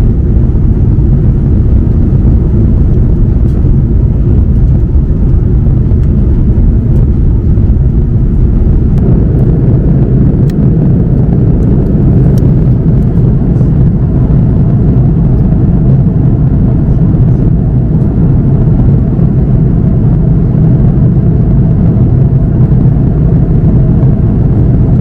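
Airbus A330-300 cabin noise at cruise: the steady roar of airflow and engines heard from inside the passenger cabin. The low hum grows a little stronger about nine seconds in.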